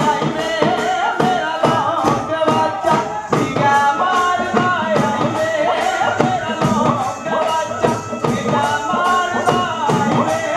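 Live Punjabi folk music for bhangra: a dhol drum beating a steady, fast rhythm under singing and a wavering melody line.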